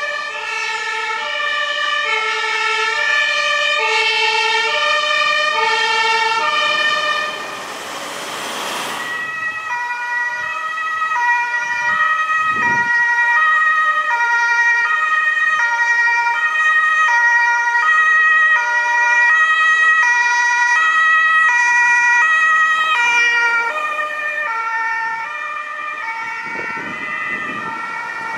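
Two-tone emergency-vehicle sirens of the German Martinshorn type, stepping between a high and a low note about every three-quarters of a second as vehicles drive past. A steady high tone sounds alongside through the middle stretch, and a swell of passing-vehicle noise comes about eight seconds in and again near the end.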